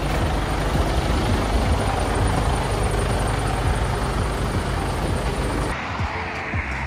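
Mercedes-Benz Actros lorry's diesel engine idling close by, a steady low throb under a rumble of noise. It cuts off abruptly just before the end.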